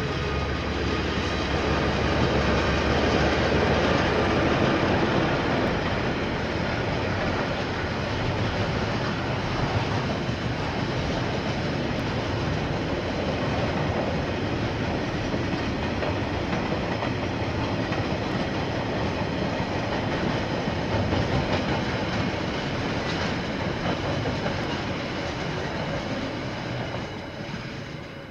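KiwiRail freight train passing: a long, steady run of wagons rolling over the rails. A heavier low rumble lasts the first five seconds, and the sound fades near the end as the last wagons go by.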